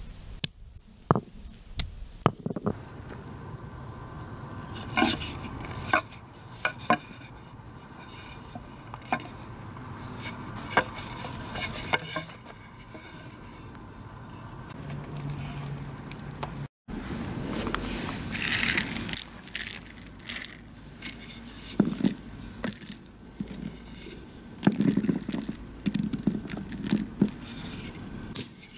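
Hand-carved wooden maces cracking ginkgo nut shells against a pebble surface: irregular sharp knocks and cracks in scattered groups, with shell fragments scraping between strikes.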